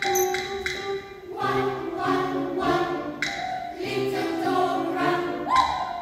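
Children's choir singing a counting-rhyme song in English with piano accompaniment. Short repeated piano chords, about three a second, play alone for the first second or so before the voices come in.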